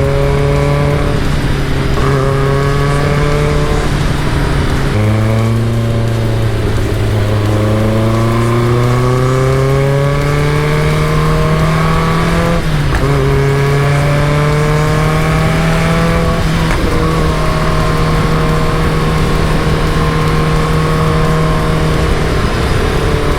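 Caterham Super Seven's engine running under way. It holds a steady pitch, drops about five seconds in, then climbs steadily for about seven seconds as the car accelerates. It steps at a gear change about halfway through and then holds an even pitch.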